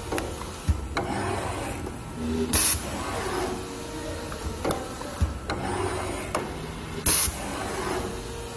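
Pneumatic label folding machine cycling: two short, sharp air hisses about four and a half seconds apart as its air cylinders exhaust, with scattered clicks and knocks from the jaws and the rustle of the label and cable being handled.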